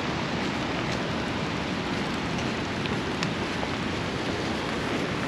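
Steady rain, an even hiss with a few light ticks of single drops.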